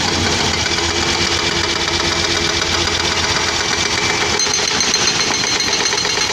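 Caterpillar 320D hydraulic excavator's diesel engine running steadily under work, with its whine shifting in pitch about four seconds in.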